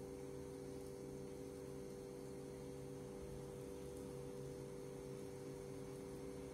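Faint steady hum made of a few constant low tones over light hiss, unchanging throughout.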